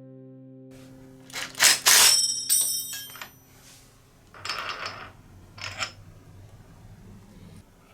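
Metallic clattering and clinking with a ringing tail, loudest about two seconds in, over soft background music with held notes; two shorter, softer rustling sounds follow.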